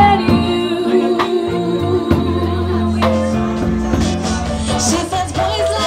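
Live band music: a woman's lead vocal over bass, drums and held instrumental notes.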